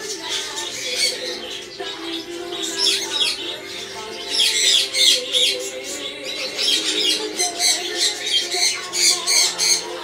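Cockatiels calling with rapid shrill chirps and squawks in repeated bursts, loudest around the middle and near the end, over steady background music.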